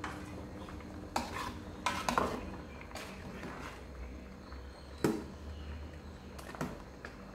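A ladle stirring soup in an aluminium pot, clinking and scraping against the pot's side several times, loudest about two and five seconds in.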